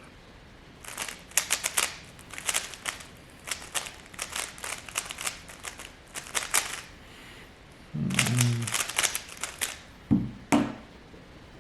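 3x3 Rubik's Cube turned at speedsolving pace, its plastic layers clicking in rapid flurries for about six seconds. A louder clatter follows about eight seconds in, then two sharp knocks near the end.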